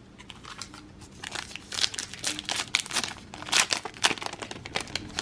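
Trading-card pack wrapper being torn open and crinkled, a dense run of sharp crackles starting about a second in.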